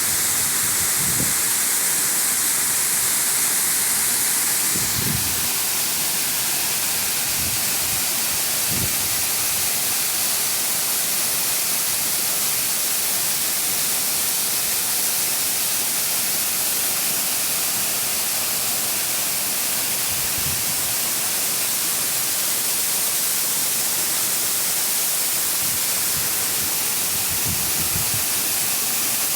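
Waterfall: falling water making a loud, steady rush, heaviest in the high hiss.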